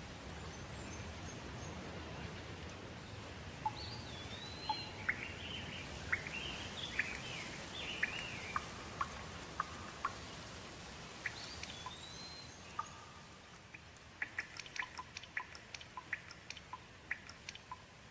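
Steady rain hiss with birds calling over it: a run of whistled calls sweeping up and down in the middle. Near the end the rain hiss thins and a quick series of short, sharp chirps takes over.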